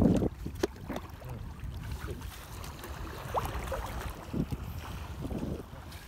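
Water splashing and dripping as a wet fishing net is lifted and shaken out of shallow water, over a low rumble of wind on the microphone.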